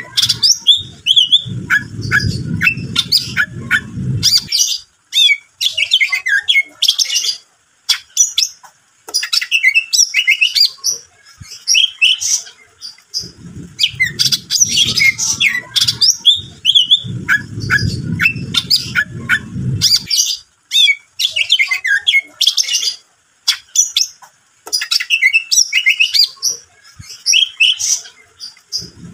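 Cucak ijo (green leafbird) singing a loud, fast, varied song of chirps, whistles and squeaky notes, in bursts broken by short pauses. A low rumble sits beneath the song twice, near the start and again mid-way.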